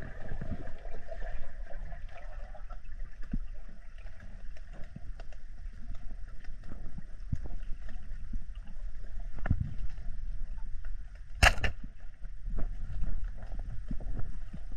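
Underwater ambience heard through a diver's camera: a low water rumble with scattered small clicks. About eleven and a half seconds in, a single sharp, loud crack as the speargun is fired.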